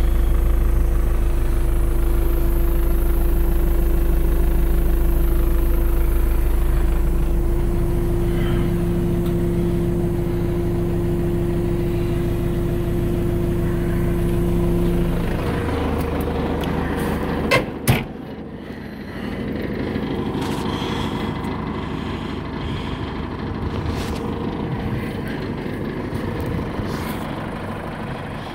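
MB trac 800's four-cylinder diesel engine idling steadily, heard from inside the cab. A little past halfway the sound changes and there are two sharp knocks. After that the idle carries on quieter, heard from outside the tractor.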